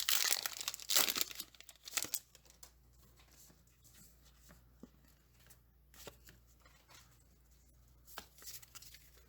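A Pokémon booster pack's foil wrapper being torn open and crinkled, loudest in the first two seconds, then quieter rustling and light ticks of handling.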